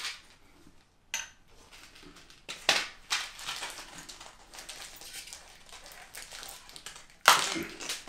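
Stiff plastic blister packaging being handled and pried open: irregular crinkling and cracking of thin plastic, with a few sharp snaps and a loud crackle near the end.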